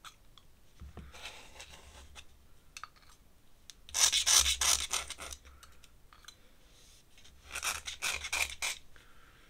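Ink brush scrubbing and scratching across drawing paper in two bouts of quick strokes, one about four seconds in and one near the end, with fainter strokes about a second in.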